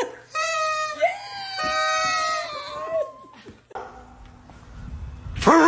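Dog howling: long, drawn-out notes that slide up and down through the first three seconds, then a low rumbling stretch, and a louder, lower howl starting near the end.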